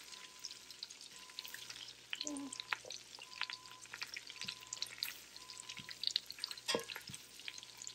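Whole spices (bay leaves, dried red chilies, cardamom) sizzling and crackling in hot oil and ghee in a large stainless steel pot, being tempered in the fat, while a wooden spoon stirs them. A few louder knocks stand out about two seconds in and near seven seconds.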